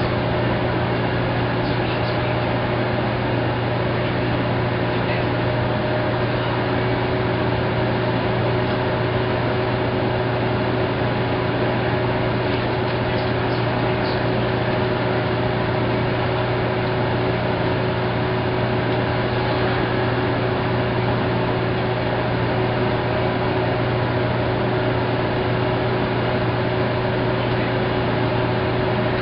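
Maytag SoftMount commercial washer running mid-cycle: a steady mechanical hum with a few constant tones and no change in speed or level.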